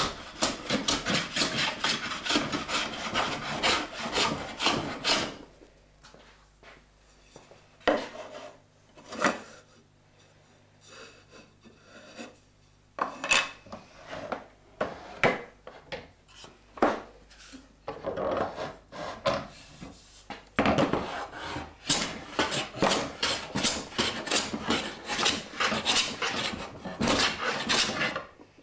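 Hand plane cutting along a wooden board, a quick run of rasping strokes that slice off shavings. The strokes stop for a stretch in the middle, with only a few single strokes, then start up again in another rapid run.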